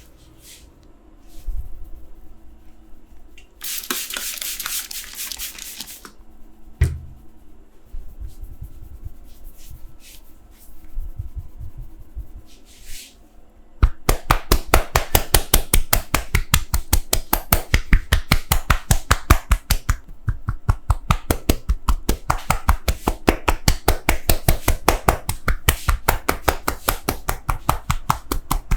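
Massage percussion by hand: a fast, even run of sharp chopping or tapping strikes on the body, starting about halfway through. Before it come scattered soft touches and a couple of seconds of hissing rubbing.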